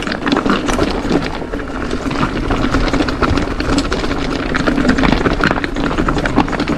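Full-suspension Orbea Occam mountain bike ridden fast over a trail of loose, flat rocks: tyres crunching and clattering over stone and the bike rattling with many quick knocks, over a steady low rumble of wind on the microphone.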